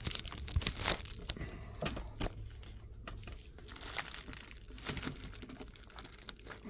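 Packaging crinkling and rustling in irregular bursts with scattered small clicks, as items are handled and dug out of a box.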